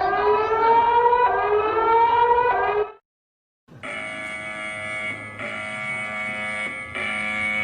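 Two emergency alert tones in succession. First a rising, siren-like sweep with a rich buzzy timbre, which cuts off about three seconds in. After a short silence comes a harsh steady multi-tone alarm that pulses about every one and a half seconds.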